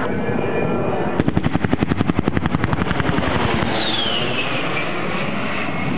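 Airshow pyrotechnic strafing-run effect: a rapid string of charges going off, about a dozen a second for some two seconds. Under it runs the steady noise of a low-passing A-10's turbofan engines, whose whine falls in pitch near the end.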